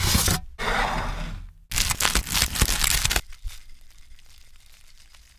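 Close-miked crunching and crackling of a crispy baked French bread pizza in three loud stretches over the first three seconds, each stopping abruptly, then fainter scattered crackles.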